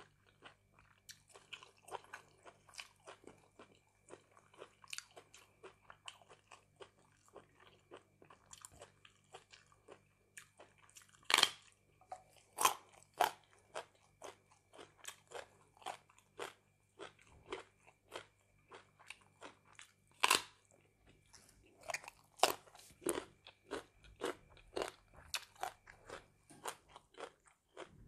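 Close-up chewing and biting of raw vegetables: a steady run of wet mouth clicks with several loud, crisp crunches in the middle and later on. A faint steady electrical hum underneath stops near the end.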